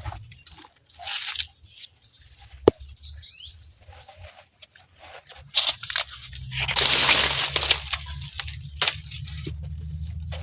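Sugarcane stalk being broken and torn: irregular crunching and crackling, a sharp snap about a quarter of the way in, and a longer tearing rasp about two-thirds through.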